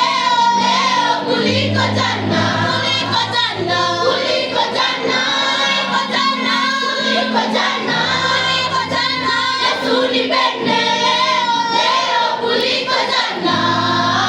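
Music: a choir of voices singing a song over an instrumental backing with held bass notes.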